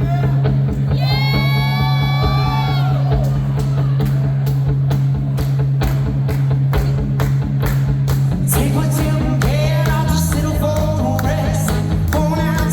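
Live rock music: loud, distorted electric guitar and pounding drums, with a voice wailing a long, held line about a second in and singing again from about eight seconds in.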